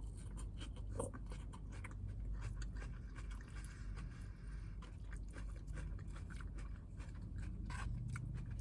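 A person chewing and crunching a mouthful of salad close to the microphone: a run of small, crisp crunches and clicks.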